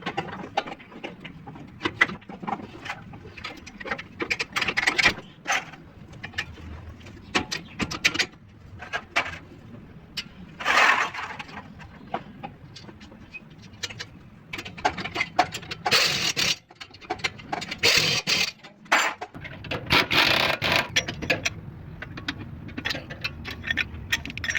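Irregular metal clanks, knocks and taps, typical of hand tools working on a car's suspension. Several longer scraping bursts stand out through the middle and latter half.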